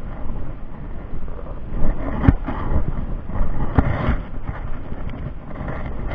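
Wind buffeting the camera microphone, a steady low rumble, with two sharp knocks, one about two seconds in and another about a second and a half later.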